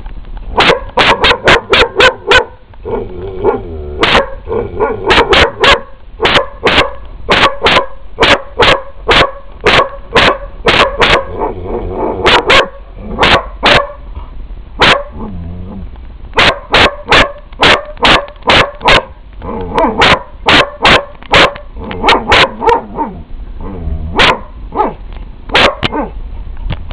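A dog barking loudly and persistently, in quick runs of sharp barks, several a second, broken by short pauses.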